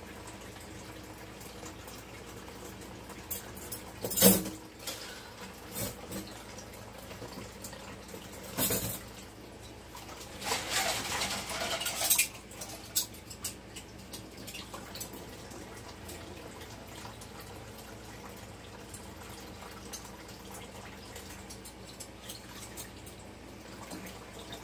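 Dishes and cutlery clinking and knocking in a kitchen sink during washing up. The loudest knock comes about four seconds in and another about nine seconds in, with a couple of seconds of water noise in the middle and a few light clicks after.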